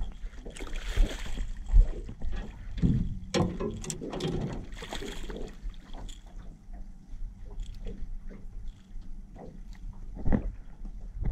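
Small channel catfish splashing at the surface as it is reeled in alongside an aluminum jon boat, with short knocks of rod and gear against the metal hull.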